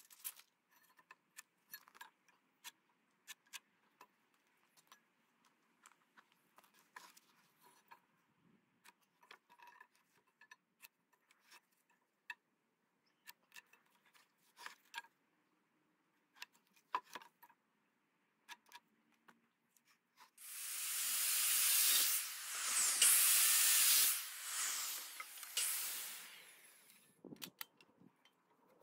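Scattered light clicks and taps of hand tools handled on timber, then a handheld circular saw starts suddenly and cuts through a weathered wooden fence post for about six seconds, its sound rising and dipping through the cut before running down.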